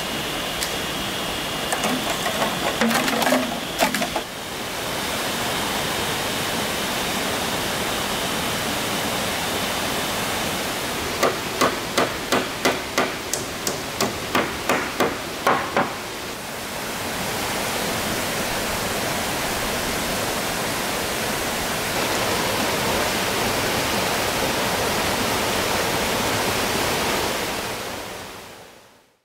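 Hammer driving nails into wooden roof planks: a run of about a dozen blows at two to three a second, with a few knocks a little earlier. Under it is the steady rush of a rocky forest stream.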